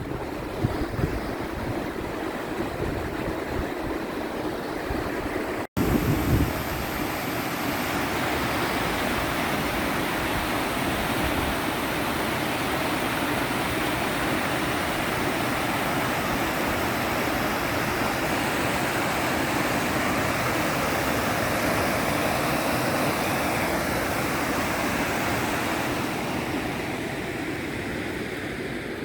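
Steady rush of flowing water, with wind buffeting the microphone in the first few seconds. The sound cuts out briefly about six seconds in, then the water rush comes back fuller and more even.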